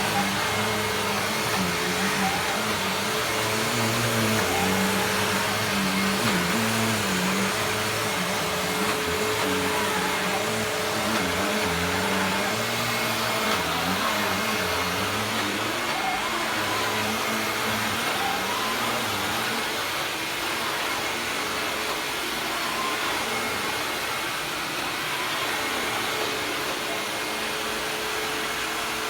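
Hoover WindTunnel Self-Propelled Premium upright vacuum cleaner running steadily, a continuous rushing of air with a steady whine over it. The sound eases slightly in the second half.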